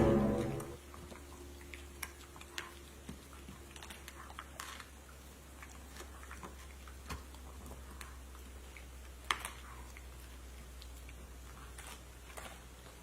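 Quiet room sound: scattered small clicks and taps over a steady low hum, after a music sting fades out in the first second.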